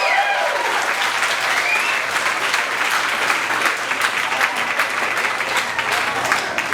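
Live audience applauding with dense, rapid clapping. The last music notes fade out right at the start.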